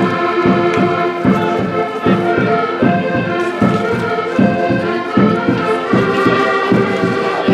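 Concertinas playing a folk tune: held chords over a regular bass beat.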